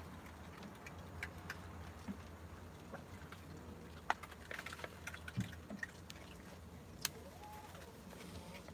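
Raccoons eating at close range: scattered small clicks and crunches of chewing and food being handled, over a steady low hum.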